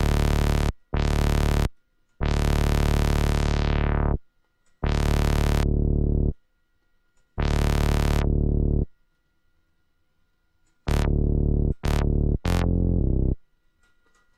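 TAL-BassLine software synthesiser playing a looped bass line of separate held notes, each of a second or two, with three shorter notes near the end. The tone comes from a filtered square and saw wave with sub-oscillator, and its filter envelope is being reshaped, so in the longer notes the brightness dies away as the filter closes.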